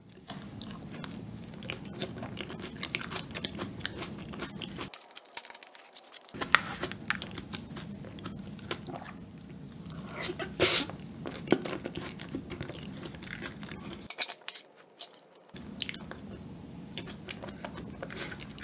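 Close-miked chewing of a spoonful of rare cheesecake topped with shine muscat grapes: soft, wet chewing with frequent small mouth clicks and a louder click a little over ten seconds in.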